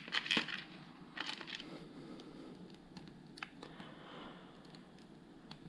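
Small plastic LEGO Technic pieces clicking and rattling as they are handled and sorted through: a cluster of sharp clicks at the start and again about a second in, then scattered faint single clicks.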